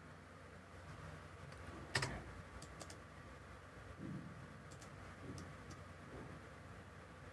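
A few faint computer mouse and keyboard clicks, the sharpest one about two seconds in.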